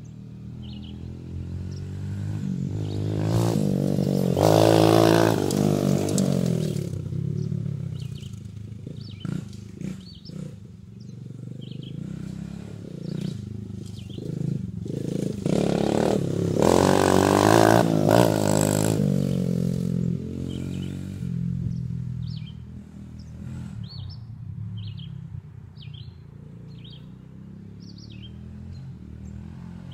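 Dirt bike engine revving as the bike rides past twice, loudest about five seconds in and again around seventeen seconds, its pitch dropping as it moves away each time.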